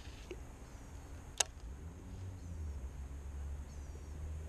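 Quiet outdoor background with a steady low rumble, and one sharp click about a second and a half in.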